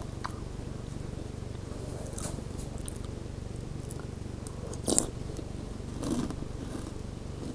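A person biting and chewing crunchy sweetened corn and oat cereal, with a few crunches, the loudest about five seconds in, over a steady low hum.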